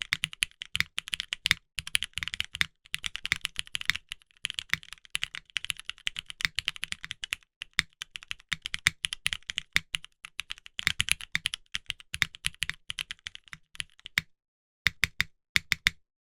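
Fast typing on a custom top-mount mechanical keyboard, the GSK 910 x Mechlovin with linear Vintage Black switches on a polycarbonate plate and GMK keycaps: a dense, uneven stream of keystrokes. The typing stops about 14 s in, and a few last keystrokes follow about a second later.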